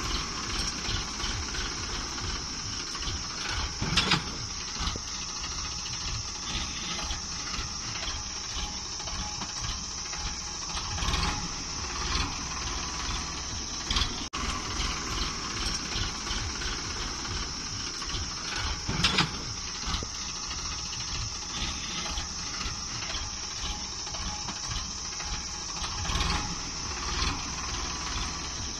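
Sonalika DI-35 tractor's diesel engine chugging steadily under load in soft ploughed soil, surging louder briefly a few times.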